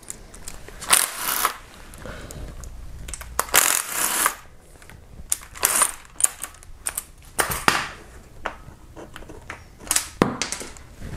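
Hand tools and small metal parts clicking and clinking in several short bursts, the longest about three and a half seconds in, as the oil pump chain's tensioner arm and guide are unbolted and lifted off an engine's timing end.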